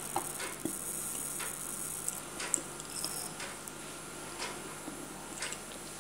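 Steel spoon stirring chopped onions and ginger-garlic paste in a kadai. It makes a faint soft scraping, with a few scattered light clicks of the spoon against the pan.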